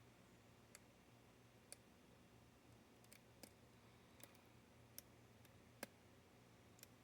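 Faint, irregular clicks of a hook pick and tension tool working the pin stack of a Paclock 90A-Pro padlock, about eight small clicks over a faint steady hum.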